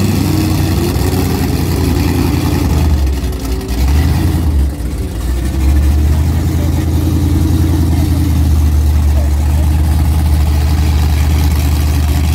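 Chrysler 440 big-block V8 of a Dodge D150 drag truck running loudly at a steady idle, its sound dipping briefly about four seconds in.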